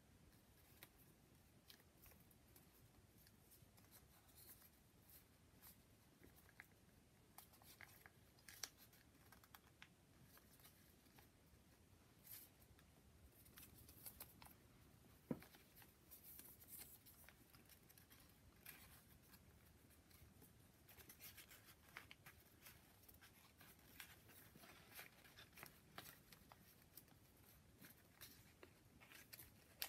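Faint, scattered rustling and crinkling of folded origami paper units being handled and slotted together, with a slightly louder tick about halfway through.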